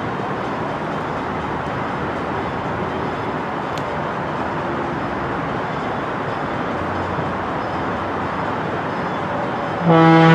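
Diesel locomotive approaching with a steady rumble. Near the end its air horn starts to blow, a loud held chord of several notes.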